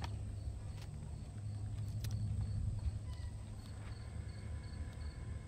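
Outdoor summer ambience: a faint insect chirping in an even rhythm, about two chirps a second, over a low steady rumble.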